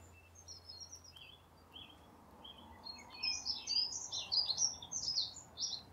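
Songbird singing: quick high chirps and twitters, sparse at first and getting busier and louder from about halfway through.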